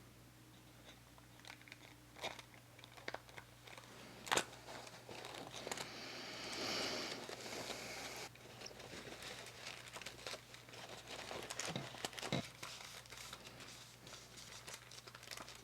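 Paper being handled and pressed down: light crinkling and small taps, a sharper tap about four seconds in, and a longer rustle of paper sliding around the middle.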